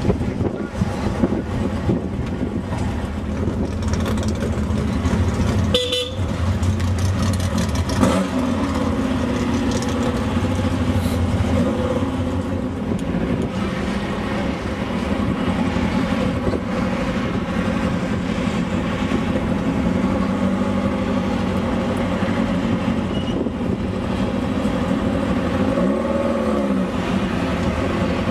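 Off-road race vehicle engine running steadily, its pitch rising and falling now and then.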